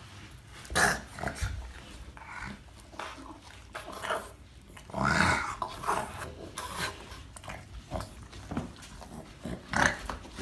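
A dog vocalizing in a few short separate bursts, the loudest about five seconds in.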